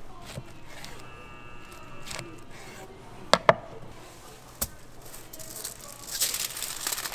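Two sharp knocks on a wooden cutting board about three and a half seconds in and a third a second later, as the knife and kimbap are handled. Then, in the last second and a half, aluminium foil and a plastic bag crinkling as the sliced kimbap is laid out for wrapping.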